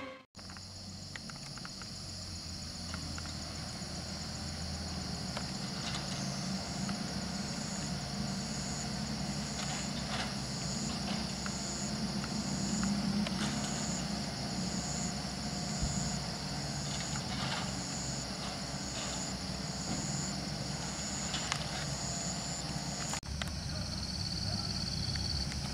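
Engines of laden light trucks running low and steady as they labour up a muddy dirt road. Over them comes a steady high buzz of insects, and from about 6 s to 23 s a high insect call pulses about once a second.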